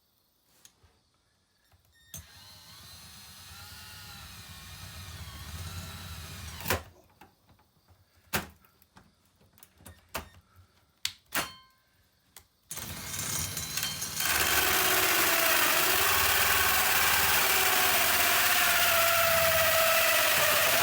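Power drill cutting into the diamond-plate wall: it runs up for a few seconds, then comes a knock and several short clicks and knocks, and from about two-thirds of the way in it runs loud and steady with a wavering squeal as it bites into the metal.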